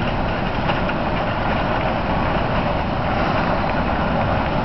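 Wind buffeting the microphone: a steady, rough rumble with no clear engine rhythm.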